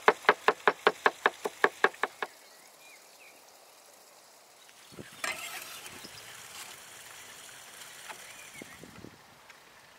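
Knife chopping onion on a wooden cutting board: rapid, even knocks about six a second that stop about two seconds in. From about five seconds in come softer, irregular scraping sounds of the blade moving chopped onion.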